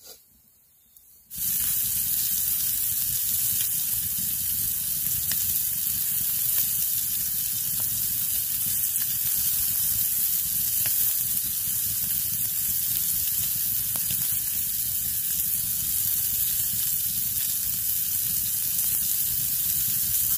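Raw pork sausage patties frying in a skillet over an open wood fire: a loud, steady sizzle that starts suddenly about a second and a half in, with a few faint ticks.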